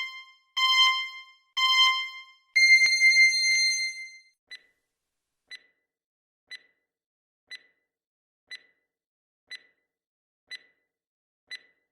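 Electronic countdown timer sound effect: pitched beeps about a second apart, the first already sounding at the start, then one longer beep, then a short tick once a second, eight in all.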